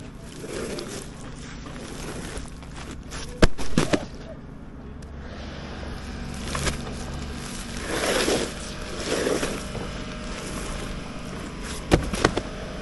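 Sharp bangs in two close pairs, the first about three and a half seconds in and the second near the end, over a steady low rumble with a few short swells of noise.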